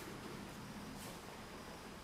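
Faint rustle of a paper catalogue page as the hands smooth it flat and slide off, with one brief swish about a second in over a steady hiss.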